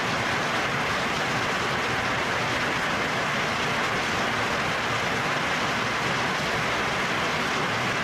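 Heavy hail and rain pouring down onto trees and foliage: a steady, dense hiss with no break.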